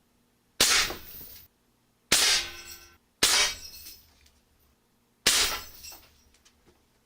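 Four loud, sharp crashes about a second or two apart, each trailing off in a ringing, rattling decay.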